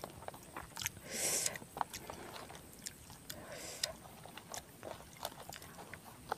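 Close-miked chewing of a mouthful of rice and eel sambal, with small wet mouth clicks, and two short rustles as fingers work the food on a banana leaf.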